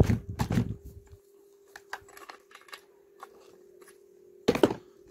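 Metal clicks and clatter of a T-handle spark plug wrench being worked on a chainsaw's spark plug to unscrew it, with a cluster of clicks in the first second, scattered small ticks, and a brief louder clatter about four and a half seconds in.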